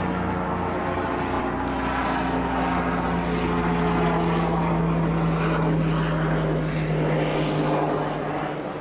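A steady engine drone with a low pitched hum, its pitch sinking slightly partway through and the sound easing off near the end.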